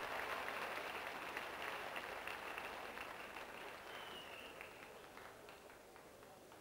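Crowd applauding, with many hands clapping, slowly dying away towards the end.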